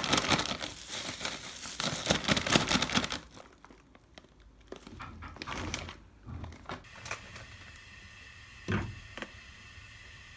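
Large plastic bag of dried greens crinkling and rustling as it is handled, loudest for the first three seconds, then in quieter, scattered rustles. One short knock comes near the end.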